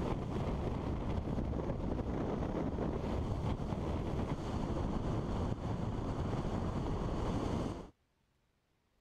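Wind buffeting a helmet-mounted microphone while riding a 1981 Kawasaki KZ550 at road speed: a steady rush of air with the motorcycle running underneath. It cuts off suddenly near the end.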